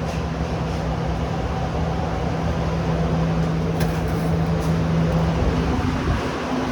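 Steady machine hum with a rushing noise, like a ventilation fan or kitchen equipment running. Its low tone shifts a little higher about five and a half seconds in.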